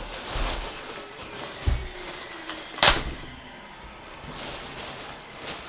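Handling noises: light rustling, a low thump a little under two seconds in, and a single sharp click about three seconds in.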